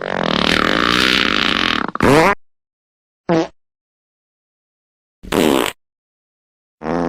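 Fart sound effects: one long fart of about two seconds, then four short farts in quick succession, separated by dead silence.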